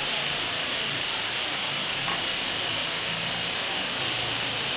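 Sausages sizzling in hot oil in a wok, a steady hiss.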